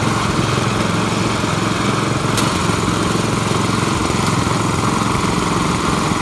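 Sugarcane juice crusher running steadily, its small engine driving the rollers as cane stalks are fed through and crushed. A single sharp click about two and a half seconds in.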